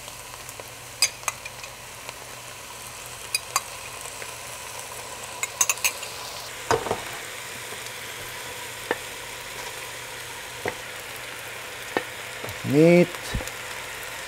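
Cabbage and herbs frying in oil in a pot on the stove, a steady sizzle. Scattered sharp clicks and knocks come from a spoon and a skillet against the pot as browned ground meat is tipped in and scraped out with a wooden spoon.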